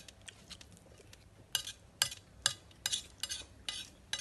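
Metal spoons clinking and scraping against bowls and a plate while people eat. Light scrapes at first, then sharp clinks about every half second from about a second and a half in.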